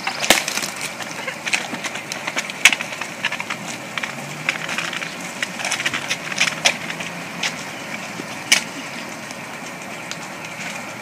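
Footsteps of several people walking on a wet paved path: irregular scuffs and clicks, two or three a second, over a steady outdoor hiss.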